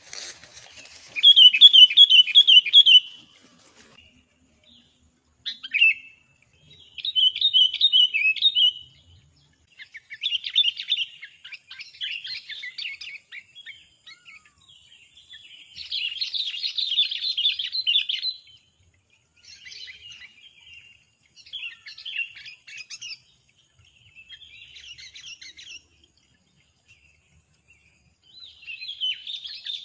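Small birds chirping in bursts of one to two seconds, separated by short gaps. The loudest burst comes near the start and is a quick run of rapidly repeated chirps.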